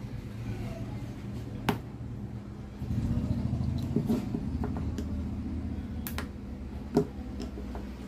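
Small screwdriver prying at the plastic housing of a demolition hammer's trigger switch, making a few sharp plastic clicks: the clearest come about two seconds in and twice near the end, with lighter ticks in between. A steady low hum runs underneath.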